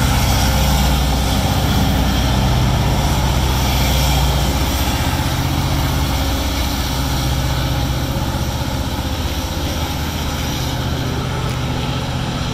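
Diesel freight locomotive passing under power, its engine a loud, steady deep drone. The drone weakens in the second half as the freight cars roll by behind it.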